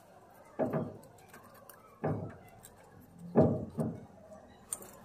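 Hands working PTFE (Teflon) tape around a brass threaded adapter, twisting it into a washer: four short, soft rustling-rubbing sounds about a second apart.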